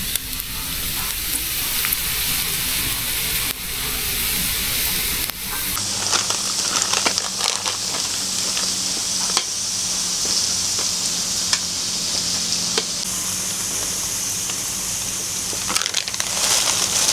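Meat sizzling on a mukata, a Thai barbecue's domed grill pan: a steady hiss with scattered pops and crackles.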